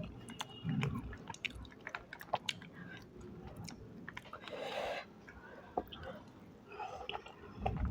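Close-miked mouth sounds of a person eating: chewing and biting with many short wet clicks and occasional crunches.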